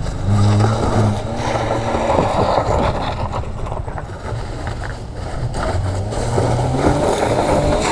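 Motorcycle engine running with wind rushing over the microphone, its pitch rising near the end as it accelerates.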